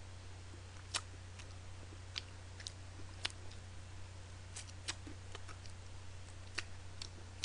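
Close-miked eating sounds: scattered short mouth clicks and smacks from chewing fried chicken and sucking sauce off the fingers, about a dozen in all. A steady low electrical hum runs underneath.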